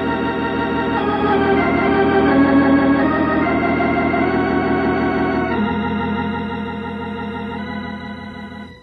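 Organ music bridge between scenes: held chords that swell, change to a lower chord a little past halfway, and fade away near the end.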